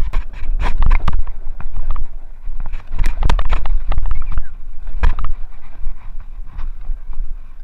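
Mountain bike descending a rough dirt trail, heard from a handlebar-mounted camera: heavy wind rumble on the microphone with frequent clattering knocks and rattles as the bike runs over rocks and roots.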